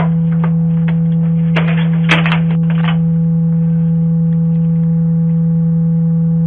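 A loud, steady low drone-like tone that holds unchanged, with bursts of crackling static about a second and a half to three seconds in.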